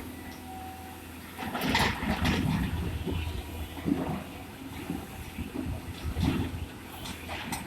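Excavator engine running with a low hum under irregular clattering and rushing of stone, heaviest about one and a half to two and a half seconds in, with further knocks near four, six and seven seconds.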